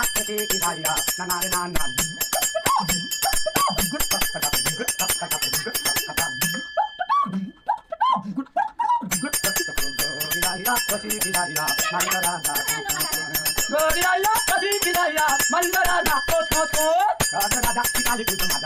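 A man's voice singing over music with a fast, steady beat and bell-like ringing. The beat drops out for a couple of seconds about halfway through, leaving the voice alone, then comes back.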